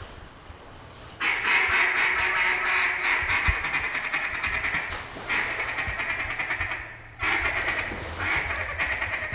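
Ducks quacking and chattering in a dense, rapid run, starting about a second in and pausing briefly twice.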